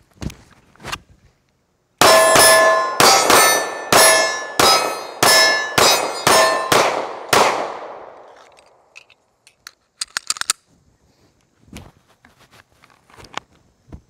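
A rapid string of about ten shots from a Sig P320 XCompact 9mm pistol, starting about two seconds in, with steel targets clanging and ringing as they are hit. The ringing of the last hit fades out over about a second.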